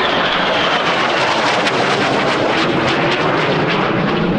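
Loud, steady jet noise from the Rolls-Royce Pegasus engine of an EAV-8B Harrier II Plus, with a faint whine that falls in pitch over the first second or so and a crackle in the higher notes.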